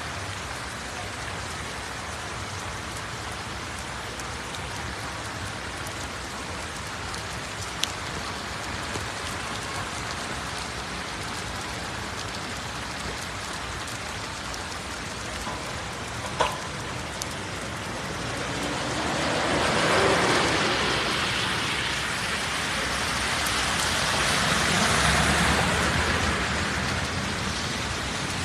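Steady heavy rain falling on a flooded street, an even hiss that swells louder twice in the second half, with a couple of faint clicks.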